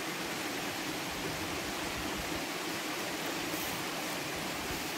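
Toccoa Falls waterfall rushing: a steady, even roar of falling water with no breaks.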